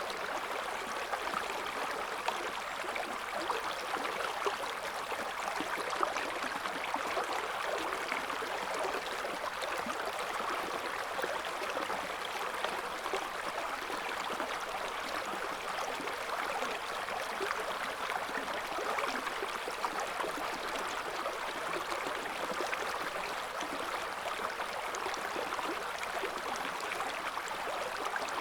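River water flowing steadily over stones, a continuous gurgling rush with fine splashing detail.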